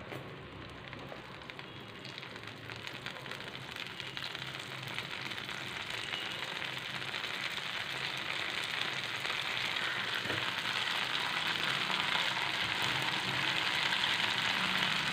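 Idli-batter rings sizzling as they deep-fry in hot oil in a frying pan, with the sizzle growing steadily louder.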